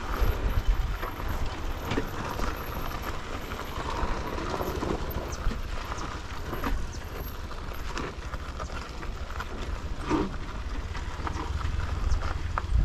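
Royal Enfield Himalayan's single-cylinder engine running low as the motorcycle rolls down a rough off-road trail, with scattered knocks and rattles as the wheels go over stones.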